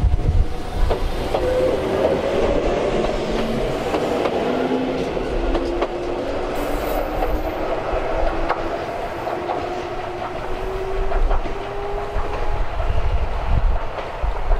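Ichibata Electric Railway 1000 series electric train accelerating away from the platform. Its inverter-driven traction motors give a whine that climbs in pitch in steps, then glides slowly higher. Wheels click over rail joints, with a low rumble underneath.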